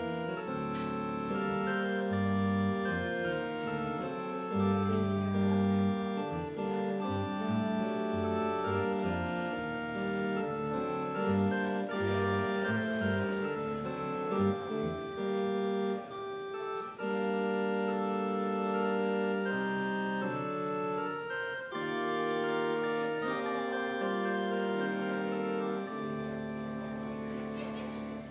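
Organ playing the closing music of a worship service: sustained chords over held bass notes that change every second or two.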